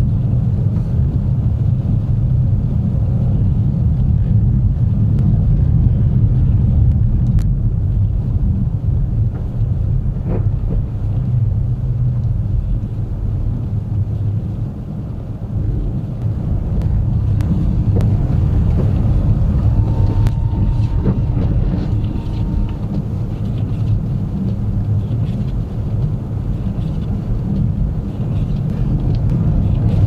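Car driving at about 40 mph on a snow-covered road, heard from inside the cabin: a steady low rumble of tyres and engine, with a few faint scattered clicks.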